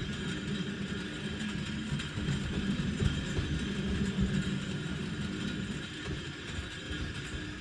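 Tram car running along street rails: a steady rumble and rattle of wheels on track, with a sharper knock about three seconds in.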